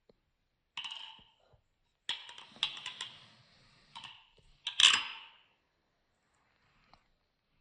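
Balisong trainer being flipped: the handles clack and rattle against each other and the blade in short bursts of sharp clicks, the loudest about five seconds in.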